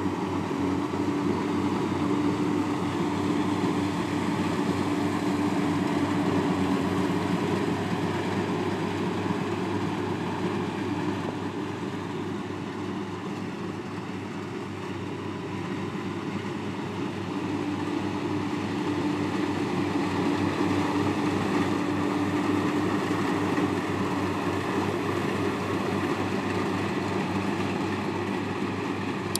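Engine of a piece of farm machinery running steadily with a low, even pulsing drone, easing off a little in the middle and building back up.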